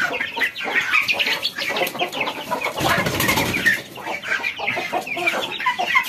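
Chickens clucking with young chicks peeping in quick, high calls, and a brief low rustle of flapping wings about three seconds in.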